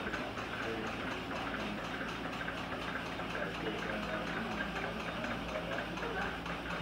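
Steady indoor background hum with a faint murmur of distant voices and a light, fast regular ticking.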